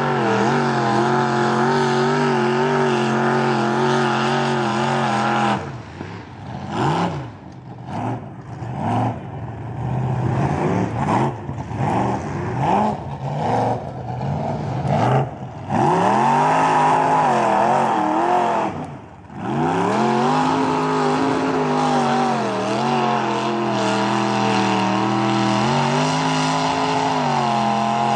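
Lifted mud truck's engine running hard at high revs as it drives through the mud pit. About five seconds in, the throttle turns into a string of short revs on and off; from about the middle it is held high again, its pitch rising and falling, with one brief drop near the end.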